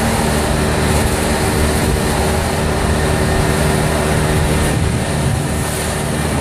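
Golf cart driving along a paved street: its motor and road noise run steadily.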